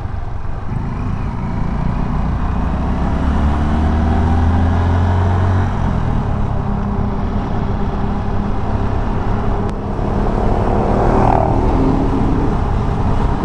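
Road vehicle's engine running on the move, its pitch climbing in stretches as it picks up speed, over steady road noise.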